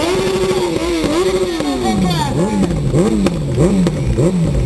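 Sport motorcycle engine revved hard at the start and held high, easing down over a couple of seconds. Then a run of quick throttle blips, about three a second, as the revs rise and fall repeatedly.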